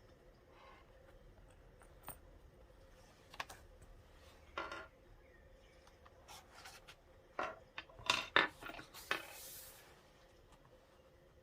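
Small handling sounds while setting up a leather notebook and its brass accessories: scattered light taps, clicks and rubbing, busiest about eight seconds in, followed by a short brushing hiss.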